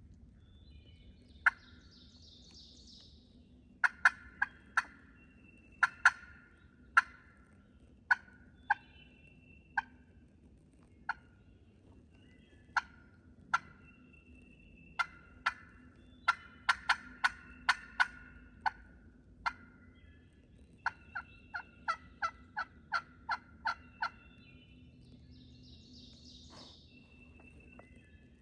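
Turkey yelps and clucks: sharp, clipped high notes in uneven runs, ending with a steady series of about eight evenly spaced yelps. A brief high rasp sounds near the start and again near the end.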